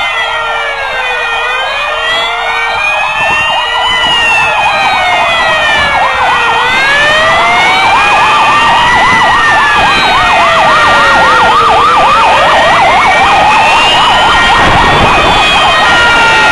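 Sirens of a convoy of fire engines approaching: several slow rising-and-falling wails overlap, with short repeated low tones in the first few seconds and a fast yelping siren from about six seconds in. The sound grows louder as the vehicles near, and truck engines rumble by near the end.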